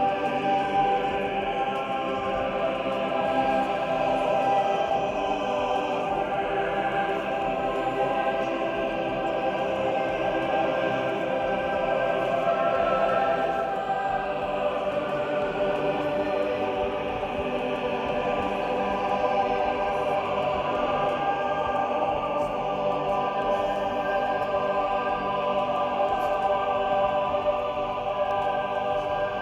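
Background music of slow, sustained chords with choir-like voices.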